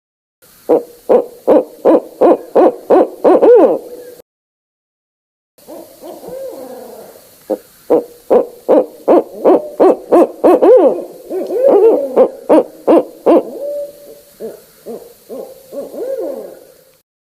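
Barred owls calling in a rapid series of hoots, about three a second, then after a short break a longer, wilder run of hoots with wavering, bending notes that fades out near the end.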